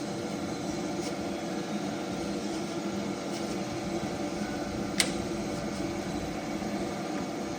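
Chevalier EVS vertical milling machine running steadily with the quill power down feed engaged, a steady hum with several constant tones. About five seconds in comes a single sharp click, the power feed kicking out at its set stop.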